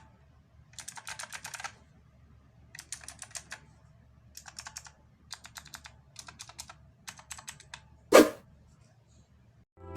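Typing on an IQUNIX M80 mechanical keyboard with clicky Kailh Blue switches: six short bursts of rapid key clicks, followed a little after eight seconds by a single loud thump.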